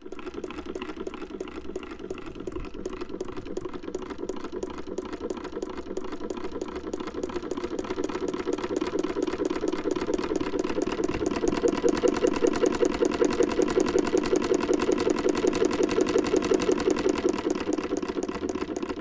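Sewing machine running steadily, its needle and mechanism giving a fast, even clatter that grows louder toward the middle and fades out at the end.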